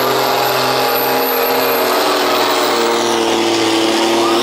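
A tractor engine running steadily at a low speed, its pitch creeping up a little near the end.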